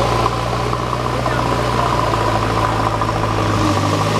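Tata 2518 tipper truck's diesel engine running steadily with its dump body raised while unloading stone chips.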